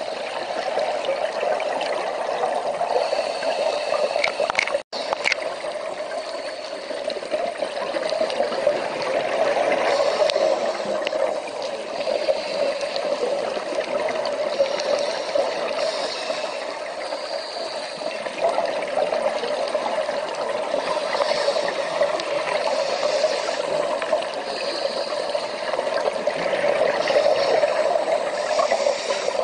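Underwater ambience picked up by a diver's camera on a reef: a steady, crackly water noise that cuts out for an instant about five seconds in.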